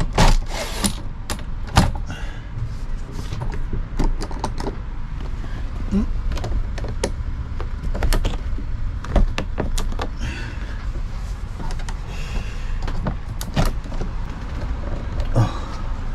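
Camper's side window fittings being worked by hand: a run of irregular clicks, knocks and a few short creaks as the pleated blind, screen and window are moved, over a steady low rumble.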